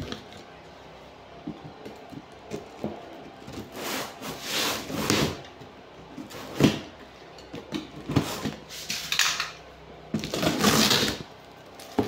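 Snap-off utility knife slitting the packing tape on a cardboard box in several scratchy strokes, with small knocks and clicks as the box is handled.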